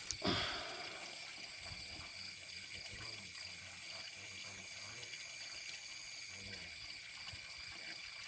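Steady, high-pitched chorus of night insects at several constant pitches, one of which stops a little after six seconds in. There is a short burst of rustling and water noise just after the start, as the angler's hand works the eel line among the pond plants.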